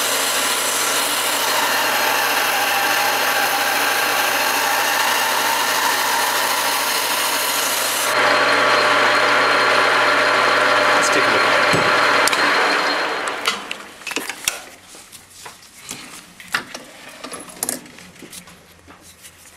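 Heavy rasp held against a polyurethane skateboard wheel spinning on a metal lathe, a loud steady scraping as it cuts the wheel down to remove flat spots and the high point. About thirteen seconds in the noise dies away, leaving scattered clicks and knocks.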